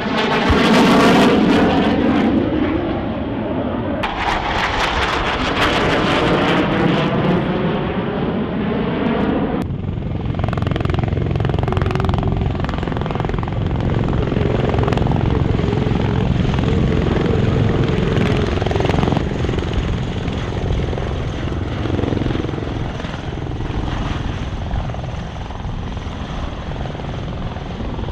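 Loud aircraft roar that swells and fades twice in the first ten seconds with a sweeping, phasing sound, and a low thump near the start as a pyrotechnic fireball goes off. After an abrupt change, an MV-22 Osprey tiltrotor flies overhead, its rotors and turboshaft engines making a steady rumbling drone.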